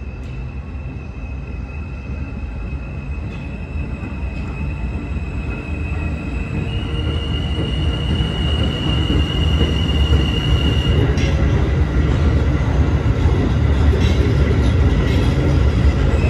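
R160 subway train approaching and running through the station. A low rumble of wheels on rail grows steadily louder, and clacks over the rail joints come in the second half. A steady high whine steps up once in pitch about seven seconds in and fades out a few seconds later.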